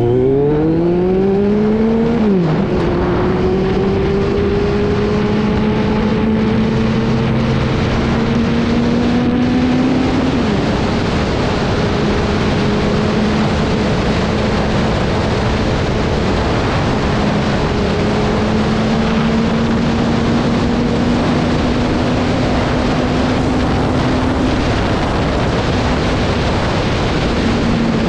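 Kawasaki Z900's inline-four engine with an aftermarket SC-Project exhaust under way on the road. It revs up hard through a gear, shifts up about two and a half seconds in and again about ten seconds in, then holds a steady cruise with its pitch creeping slowly higher, over a constant rushing noise.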